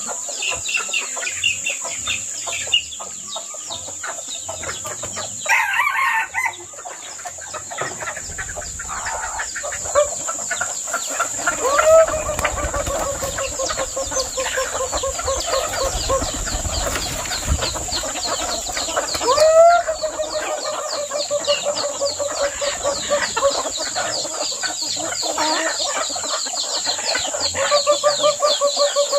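Roosters crowing, three long crows starting about twelve, twenty and twenty-eight seconds in, over the steady clucking of a flock of chickens, with pigeons' wings flapping as they fly in.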